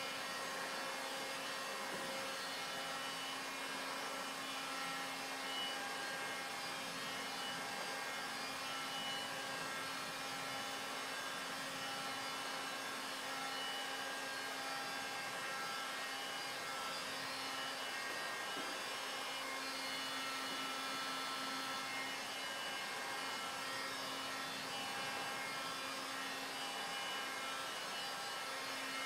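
Handheld electric heat gun running steadily, its fan blowing hot air to shrink window tint film onto a car's side window. A low hum under it drops out for a moment about two-thirds of the way through.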